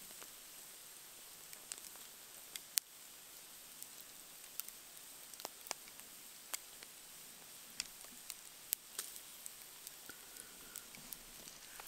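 Bacon cooking on a wire rack over a campfire: a faint steady sizzle with sharp pops and crackles scattered irregularly through it, the loudest a little under 3 seconds in and near 9 seconds.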